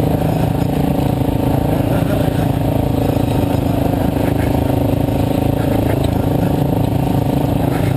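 Dirt bike engine running steadily under load, heard from on the bike as it rides a dirt trail. A few short clicks come through in the second half.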